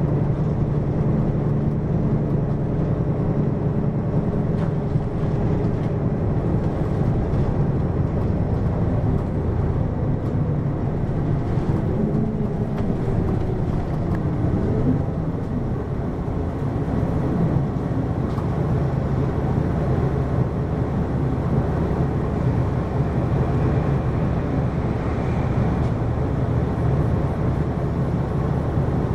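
Hino QKG-LV234N3 city bus running on its diesel engine, a steady drone. About halfway through the engine note glides up and down and the sound dips briefly before steadying again.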